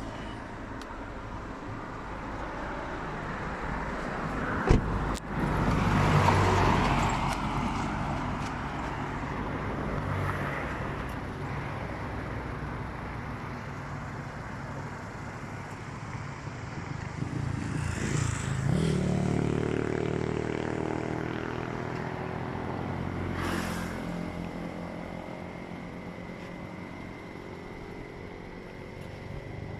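Road traffic: motor vehicles running and passing, swelling and fading several times, with one sharp knock about five seconds in.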